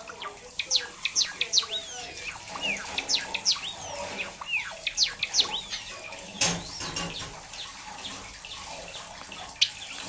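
Cinnamon Java sparrow singing: a quick run of sharp chirps and slurred, falling whistles for about five seconds, then a few scattered notes. A single sharp click sounds about six and a half seconds in.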